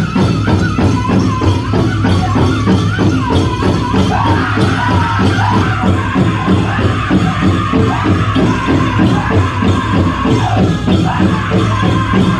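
Powwow drum group singing a men's chicken dance song over a fast, steady beat on a big drum, with the jingling of the dancers' bells.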